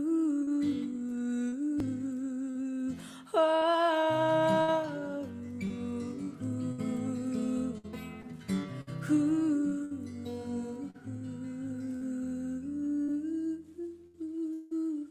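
A woman singing a wordless, hummed melody over her own strummed acoustic guitar, the voice swelling loudest with vibrato a few seconds in.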